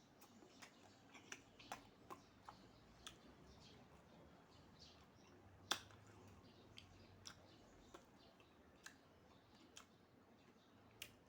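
Close-miked eating sounds: a person chewing and crunching, heard as scattered crisp clicks, with one sharper snap a little past halfway.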